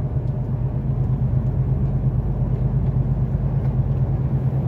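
Loaded truck's diesel engine and tyre noise heard from inside the cab while driving, a steady low drone.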